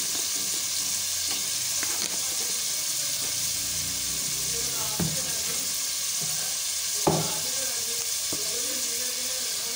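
Chicken pieces sizzling steadily in hot oil in a metal pot. There are a couple of short knocks, the loudest about seven seconds in.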